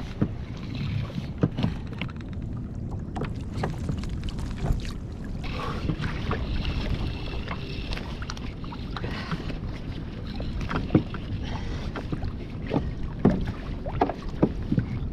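Wind buffeting the microphone and water moving around a kayak, a steady low rumble, with scattered sharp knocks and clicks of gear being handled on board, a few louder ones near the end.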